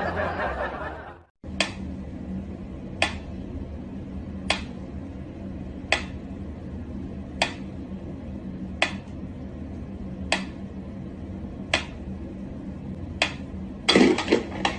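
Mechanical pyramid metronome ticking slowly, one sharp tick about every second and a half. A louder thump and scuffle comes about fourteen seconds in.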